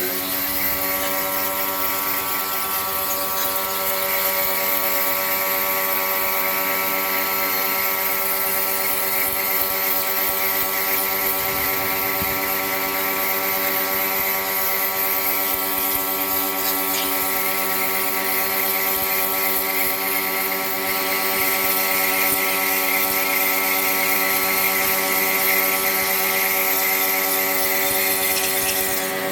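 An electric motor-driven machine starts abruptly with a brief rise in pitch, then runs steadily with a whine and a hiss.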